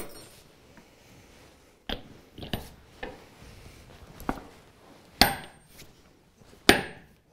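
Hammer striking a steel pestle set in a steel mortar, crushing lumps of vitreous enamel: a few light knocks, then two hard strikes that ring metallically near the end.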